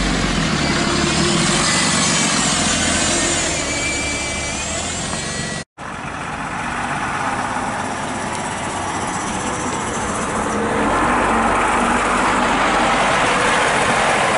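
Two buses driving past in turn. First a modern single-decker passes close with a high whine that wavers in pitch; then, after a sudden cut, a 1970s Leyland National's diesel engine pulls away and grows louder as the bus drives past.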